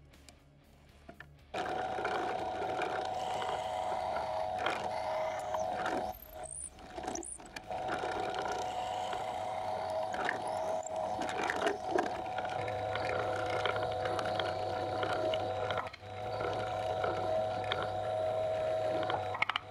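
Drill press motor running steadily while a twist drill bores into a wooden knife-handle block. It starts after about a second and a half of near silence and drops out briefly twice, around six to seven seconds in and again around sixteen seconds in.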